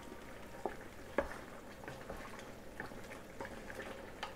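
Chicken pieces simmering in broth in a stainless steel pot, a faint steady bubbling sizzle, stirred with a spatula that gives a few light knocks against the pot, the sharpest about a second in.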